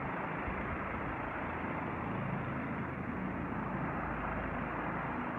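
Rescue helicopter hovering at a distance, its rotor and turbine making a steady, even drone.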